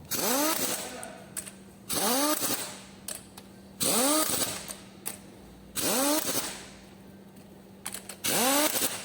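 A power tool's motor spinning up in five short bursts about two seconds apart, its whine rising in pitch each time and fading away, over a faint steady hum.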